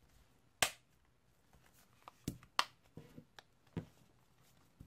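Plastic clips of a Hudl 2 tablet's back case snapping into place as it is pressed closed: a series of about seven short, sharp clicks, the loudest just over half a second in and several more close together in the second half.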